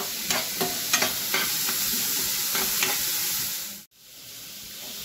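Chopped onions sizzling in oil in a frying pan, with a steel spoon scraping and clicking against the pan as they are stirred during the first second or so. The sizzle cuts out abruptly near the end, then comes back quieter.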